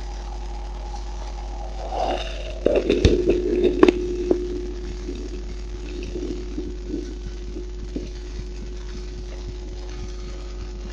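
Handling noise from a microphone set up to record a heartbeat: rubbing and a cluster of loud knocks about two to four seconds in, over a steady low hum. Scattered faint ticks follow.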